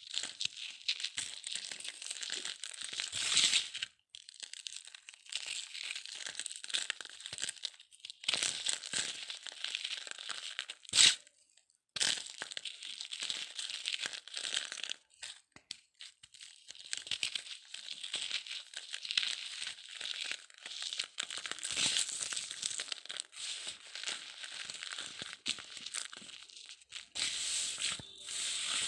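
Dry cement chunks being crumbled and crushed, a continuous gritty crackling and crunching with a few short pauses, and one sharp crack about eleven seconds in.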